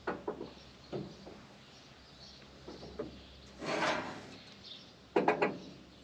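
Hand work on a combine header: scattered light knocks and clicks, a brief scraping rustle about four seconds in, then a quick run of three or four loud sharp knocks near the end.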